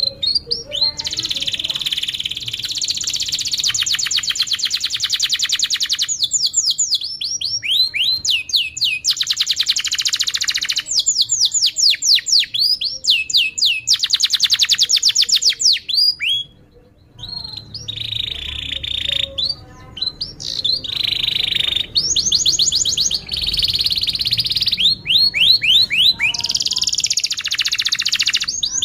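Domestic canary singing a long, continuous song of fast trills and rapid repeated chirps, with a brief pause just past the middle.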